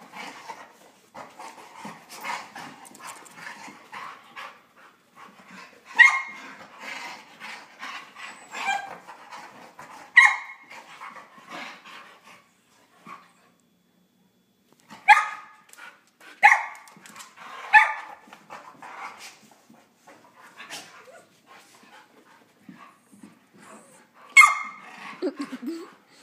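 Puppies wrestling in play, with short, sharp barks in clusters about six, ten, fifteen to eighteen and twenty-four seconds in, and quieter scuffling between.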